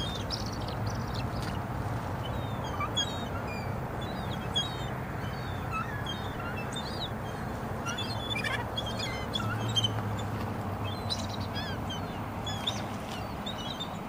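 Many birds calling at once, a continuous chatter of short, high chirps and squeals overlapping throughout, over a steady background rumble.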